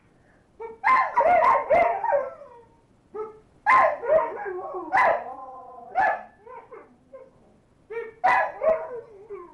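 Alaskan malamutes howling in a run of short, pitched bark-howls with brief gaps between, several of the calls sliding down in pitch.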